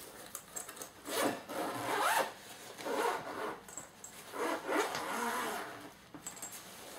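A zipper on a padded gig bag being pulled open in several long rasping strokes.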